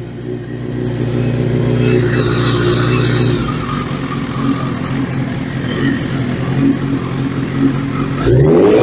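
Suzuki Hayabusa's 1299 cc inline-four engine idling steadily, then revved once near the end, the pitch rising and falling back.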